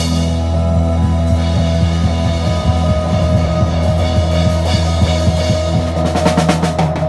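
Live band playing a held chord with a sustained bass note and light drum hits; a run of sharp drum-kit strikes comes in near the end.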